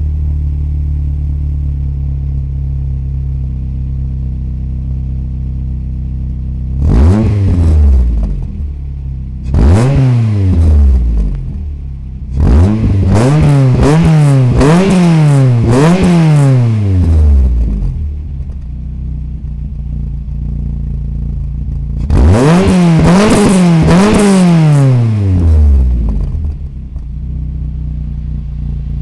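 1993 Renault Clio Williams' 2.0-litre 16-valve four-cylinder engine idling through a decatted Mongoose full exhaust and being blipped. There is a single rev about seven seconds in and another about ten seconds in, then a run of about four quick revs, and a longer burst of revs near the end before it drops back to idle.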